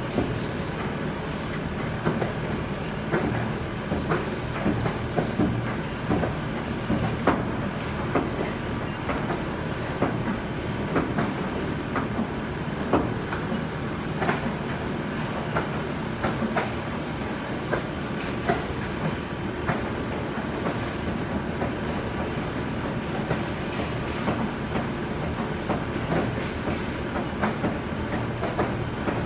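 Conveyor tunnel dryer of a garment-printing line running: a steady hum of motor and fans, with frequent irregular clicks and rattles from the moving mesh belt.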